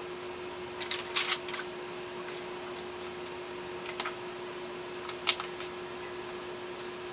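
A few scattered clicks and clacks of bicycle parts and tools being handled during assembly: a quick cluster about a second in, then single clicks about 4 and 5 seconds in. A steady hum runs underneath.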